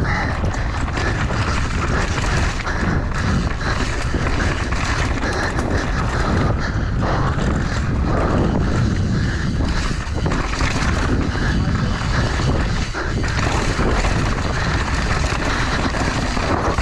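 Enduro mountain bike ridden fast down a dirt singletrack onto rocky ground: a continuous rumble and rattle of tyres and frame over the trail.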